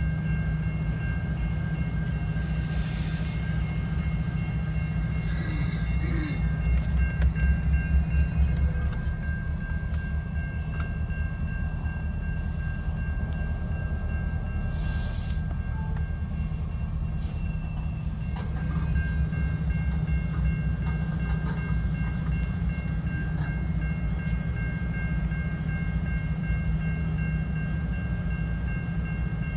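Freight train of tank cars rolling through a grade crossing, heard from inside a car: a steady low rumble that swells for a couple of seconds about a quarter of the way in, with a steady high ringing tone over it.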